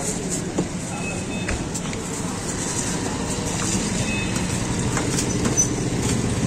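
Busy street-food stall ambience: a steady low hum and rumble with scattered light clicks and taps.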